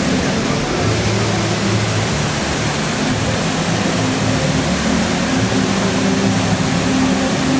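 Steady, loud rush of water falling down a tiered cascade fountain with tall water jets, with a low hum underneath.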